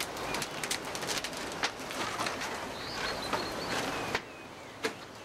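Larch wood fire in a stone oven crackling and popping, with many sharp snaps over a steady hiss. The crackling drops away about four seconds in, leaving a quieter hiss, and a bird chirps faintly about three seconds in.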